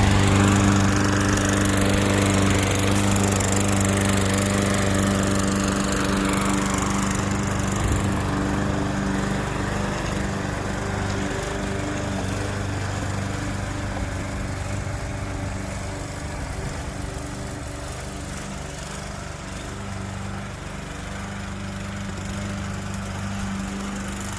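Toro walk-behind gas lawn mower's single-cylinder engine running steadily while it is pushed across the grass. It grows gradually fainter as it moves away, then louder again near the end.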